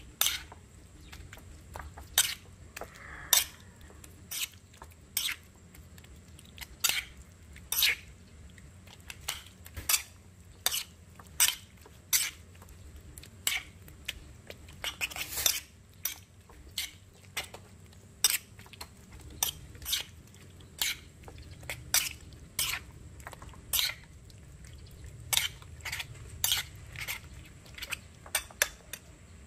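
Metal spoon clinking and scraping against a ceramic plate while it stirs raw chicken pieces in seasoning. The sharp taps come irregularly, about one or two a second, with a quick run of taps about halfway through.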